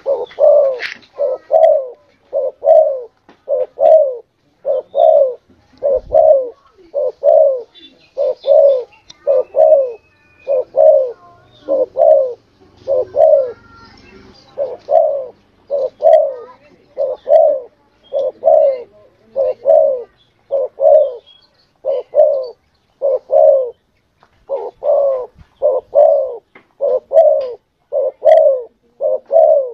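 Spotted dove (tekukur) singing its cooing song: short low coos repeated steadily in groups of two or three, with a brief lull about halfway through.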